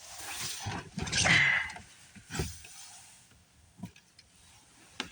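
Rough rustling and buffeting noise on the microphone, in uneven surges that are loudest about a second in, followed by a few sharp clicks near the end.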